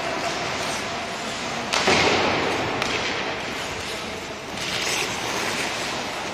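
Ice hockey play on the rink: skate blades scraping and hissing on the ice over a steady arena din. A sudden loud hit about two seconds in, followed by about a second of harsh scraping, and another swell of scraping a little after the middle.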